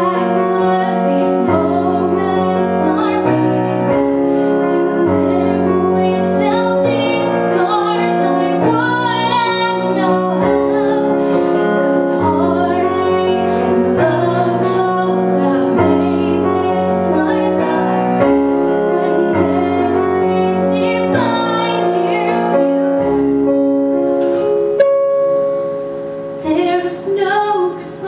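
A woman singing to piano accompaniment in a live performance, the chords changing every second or two. The music drops quieter for a moment near the end.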